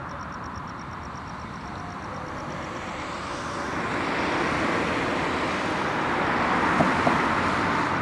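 Steady rushing vehicle noise that swells louder from about three seconds in. A faint, rapid high ticking fades out in the first second.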